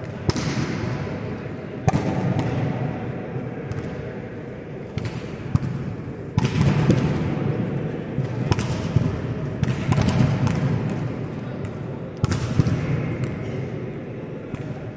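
Volleyball rally in an echoing indoor hall: repeated sharp smacks of the ball being served, dug, set and spiked, each ringing off the walls. Under them runs a steady murmur of voices from spectators and players.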